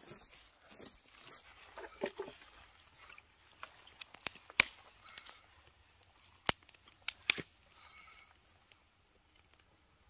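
Rustling and crunching through dry leaf litter, with several sharp cracks of dry sticks snapping, the loudest between about four and seven and a half seconds in. A brief faint squeak comes near the end.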